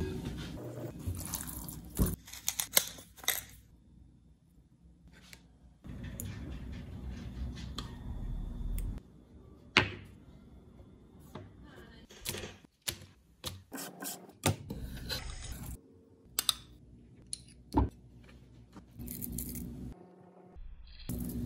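Kitchen prep handling: small ceramic dishes set down on a bamboo cutting board and a spoon against a bowl, giving scattered sharp clinks and taps between stretches of soft rubbing and shuffling.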